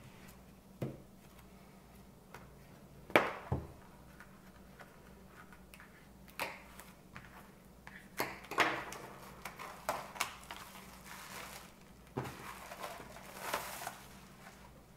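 Plastic shrink wrap on a vinyl record jacket being slit with a folding knife and peeled off: scattered crinkles, scrapes and light taps, growing denser in the second half. A sharp knock stands out about three seconds in.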